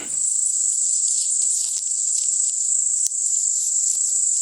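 Insects buzzing in a steady, high-pitched drone.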